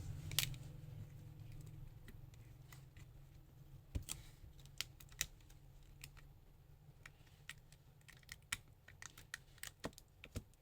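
Scattered light clicks and taps from handling the opened Vivo Y15 phone as its battery is fitted back in place, over a low steady hum.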